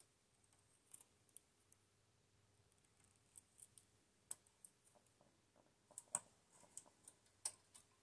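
Scattered light metallic clicks of a hand transfer tool against the steel latch needles of a Brother 965i standard-gauge knitting machine as a stitch is lifted and moved, more frequent and sharper in the second half.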